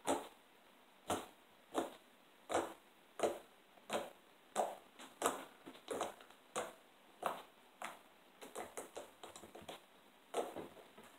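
Fingers poking into a lump of slime, each poke giving a short, sharp pop, about one every two-thirds of a second, then a quicker run of softer pops near the end.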